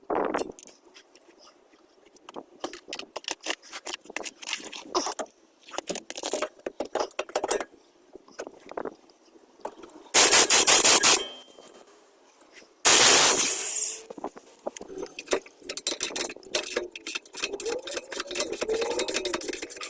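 Metal parts and hand tools clinking, clanking and scraping in irregular short strokes, broken by two loud hissing bursts of about a second each in the middle.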